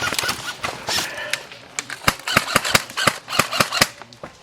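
Airsoft guns firing: a run of sharp, irregular shots, thicker in the second half.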